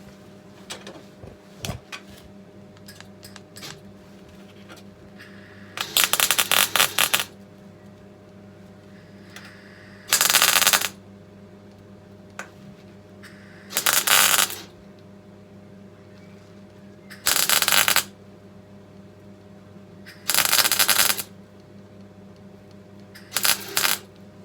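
MIG welder tack-welding steel repair panels on a car body: six short bursts of crackling arc, each about a second long and a few seconds apart, over a steady low electrical hum.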